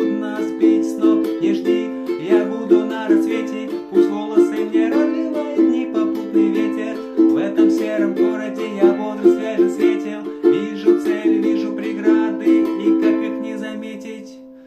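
Music: a rhythmically strummed ukulele accompaniment with a wavering melody line over it, fading out over the last few seconds.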